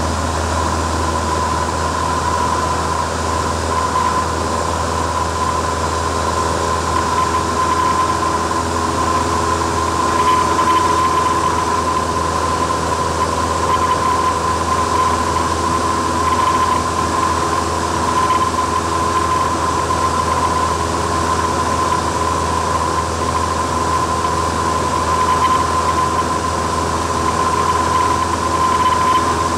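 Light aircraft's engine and propeller droning steadily, heard inside the cabin, with a constant high whine on top.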